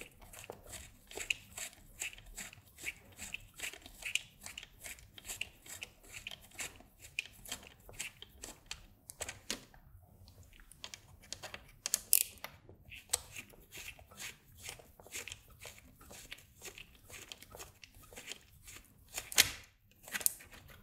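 Small hex screwdriver loosening socket-head screws and nuts through a stack of acrylic panels: a run of quick small clicks and scrapes of the driver, screws and panel, with one sharper clack near the end.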